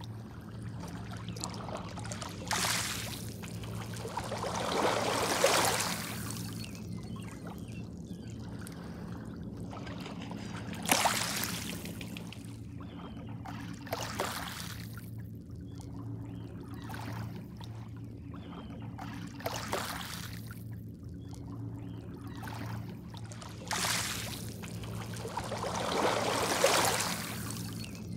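Small waves lapping and washing over a pebble shore, a rushing swell every few seconds that rises and fades, the loudest about five seconds in, near eleven seconds and near the end. A steady low hum runs underneath.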